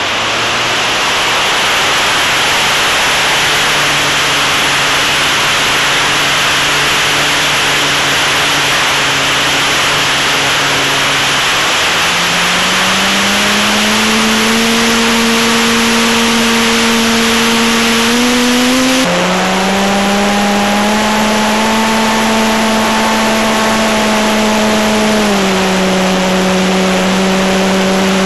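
Motor and propeller of a T-28 RC model plane, heard from a camera on the airframe under a loud rush of wind over the microphone. The propeller hum shifts pitch in steps several times as the throttle changes: higher about halfway through, then lower again near the end.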